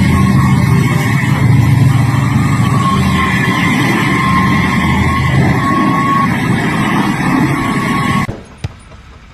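A heavy engine running loud and steady with a low hum, stopping abruptly about eight seconds in, followed by a few faint clicks.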